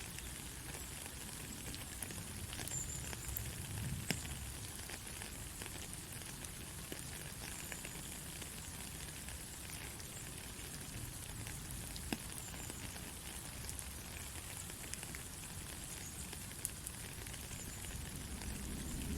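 Steady rainfall, an even hiss with scattered sharp drips of single drops landing throughout.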